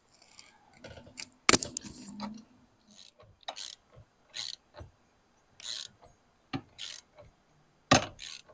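Ratcheting hand tool driving screws back in: short rasping ratchet spells about once a second between sharp clicks, the loudest clicks about a second and a half in and near the end.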